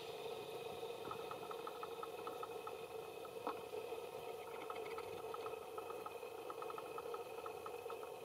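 Steady outdoor background hum with a rapid ticking chirp, about seven ticks a second, in two runs, and a single sharp click about halfway through.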